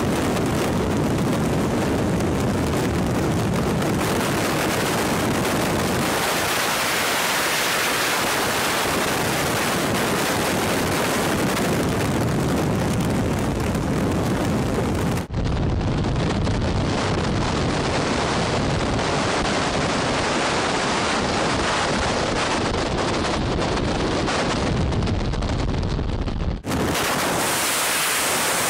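Freefall wind rushing over the camera microphone during a tandem skydive: a loud, steady roar of wind noise. About halfway through it cuts abruptly to a duller sound, and it cuts back near the end.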